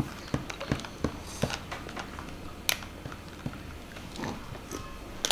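A metal spoon clicking and scraping against a plastic cup as grass jelly in syrup is scooped out and eaten: a string of sharp, irregular ticks, with soft eating sounds.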